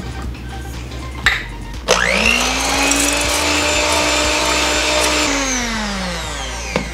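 Handheld electric immersion blender mixing butter and vanilla into thick chocolate pudding in a saucepan. Its motor whine rises as it spins up about two seconds in, runs steadily for about three seconds, then falls away as it winds down.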